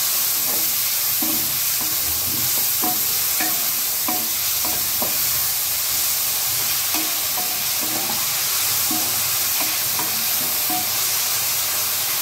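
Chopped onions sizzling in hot oil in a metal kadai, being sautéed and stirred with a wooden spatula that scrapes and knocks against the pan about once or twice a second.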